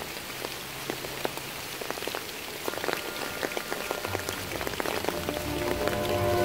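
Pouring rain, with many separate drops ticking close by over a steady wash of falling water. Music with steady held notes comes in over it near the end.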